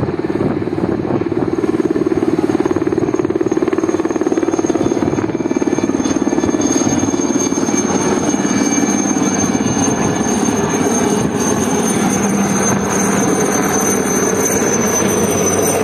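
Helicopter flying low overhead, its rotor beating in a fast, steady chop, the tone dropping slightly about halfway through as it passes.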